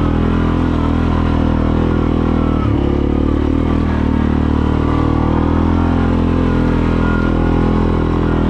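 ATV engine running steadily as the four-wheeler is ridden up a dirt trail. The engine note shifts briefly about three seconds in.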